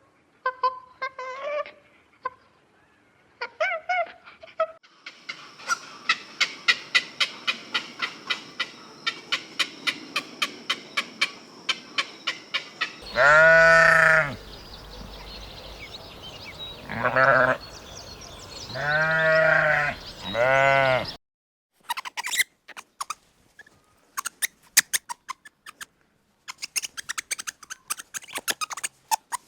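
Farm animals bleating: three loud bleats come about halfway through, after a few short calls and a fast run of clicking about five ticks a second. Scattered clicks follow.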